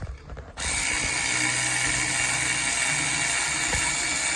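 A handheld power tool starts about half a second in and runs steadily at full speed with a high whine, spinning out the bolts of a 10-bolt rear differential cover.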